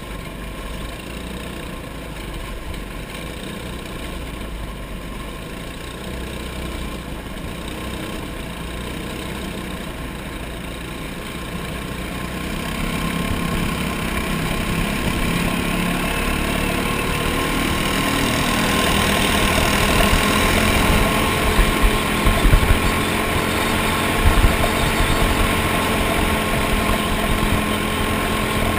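Racing kart engine running at steady, moderate revs, recorded from an onboard camera on the kart. It gets louder about halfway through, and there are a few low thumps near the end.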